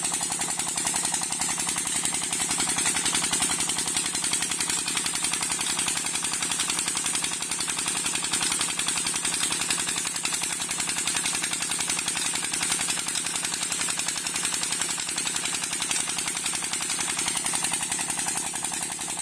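25 HP Petter diesel engine running steadily at a tubewell, driving the pump, with a rapid, even knock of its firing strokes. The rush of pumped water pouring from the outlet pipe into the channel runs underneath.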